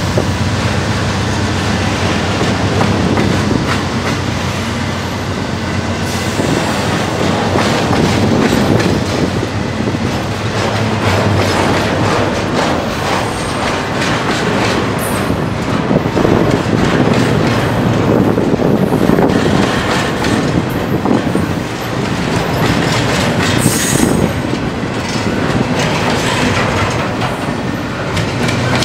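Double-stack intermodal freight train's well cars rolling past steadily, wheels clicking over the rail joints, with a couple of brief high wheel squeals.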